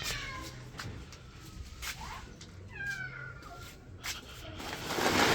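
A cat meowing: short calls falling in pitch, at the start and again around two and three seconds in. A loud rustling scrape builds near the end.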